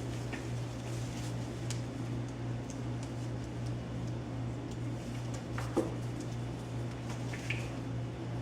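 Young puppies playing: scattered light clicks and taps over a steady low hum, with a knock about six seconds in and a short high squeak near the end.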